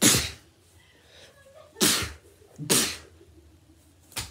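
Three short, explosive, breathy vocal bursts from a person: the first at the start, then two more about a second apart near the two- and three-second marks.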